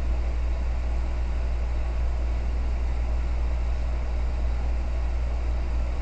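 Steady low rumble that holds even throughout, with no distinct events.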